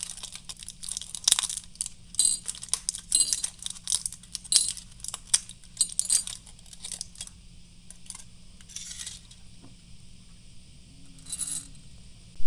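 Crinkling of a clear plastic and foil blister pack as chocolate balls are pushed out through the foil, with the candies clicking onto a ceramic plate. The rapid popping and clicking stops about 7 seconds in, leaving a few softer rustles.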